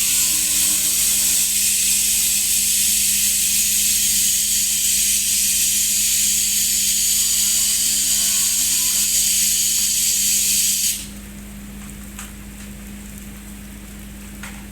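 A loud, steady high hiss over a steady low hum; the hiss cuts off suddenly about eleven seconds in, leaving the hum and a quieter background.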